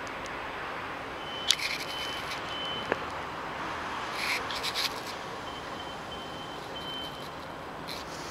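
EN57 electric multiple unit running slowly into the station platform with a steady rumbling hiss. A thin high squeal comes in twice, the second time broken up, and a few sharp clicks and crackles sound.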